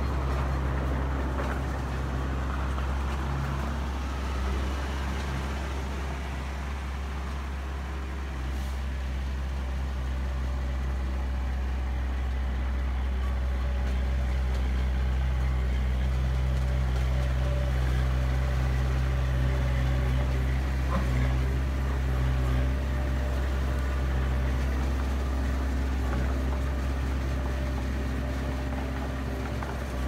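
Dump truck engine running steadily, a continuous low hum with no revving.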